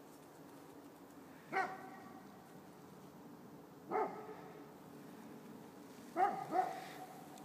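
A dog barking four times, a couple of seconds apart, with the last two in quick succession near the end: wary barks at a flag that frightens it.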